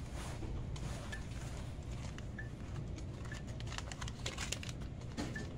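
Steady low background hum with faint rustling and clicks, the rustling growing busier near the end, and a few short faint high beeps spaced about a second apart.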